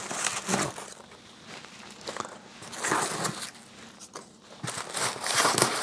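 Polystyrene packing peanuts rustling against each other and the cardboard box as a hand digs through them around a bubble-wrapped package, in a few irregular bursts, the loudest near the end.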